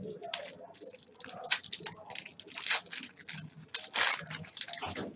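Foil wrapper of a pack of football trading cards being torn open and crinkled by hand: a run of sharp crackles, loudest about a second and a half in and again about four seconds in.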